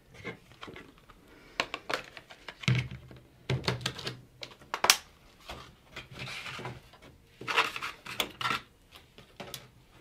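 Irregular plastic clicks and knocks as G.Skill Ripjaws V DDR4 memory sticks are pressed down into a motherboard's DIMM slots and the slot latches handled, with a few duller thuds among the clicks.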